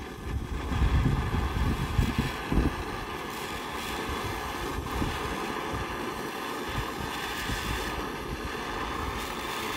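Handheld gas torch burning with a steady hiss as it heats a knife blade, with gusts of wind buffeting the microphone, strongest in the first few seconds.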